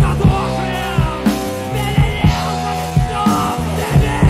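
Rock band recording playing a song: a steady drum beat under sustained chords.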